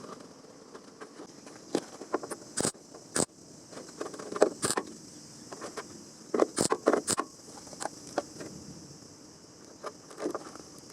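Irregular metallic clinks and knocks of hand tools and metal parts being handled, over a steady high hiss.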